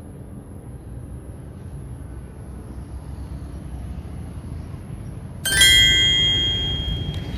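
A small metal bell struck sharply once about five and a half seconds in, ringing with several clear tones that fade over about two seconds, over a steady low rumble.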